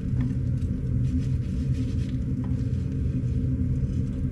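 Steady low rumble with a hum, the loudest sound throughout, and a few faint light clicks of wooden chopsticks against a frying pan as patties are turned.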